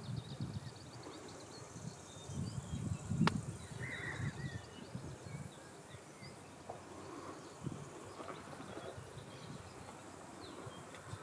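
Outdoor ambience: faint high chirps, like small birds, over irregular low rumbling, with one sharp click about three seconds in.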